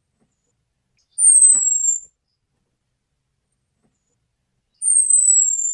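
Orange-headed thrush giving two thin, very high-pitched call notes, each gliding slightly down and lasting under a second, about three and a half seconds apart. It is the call used to lure in male orange-headed thrushes.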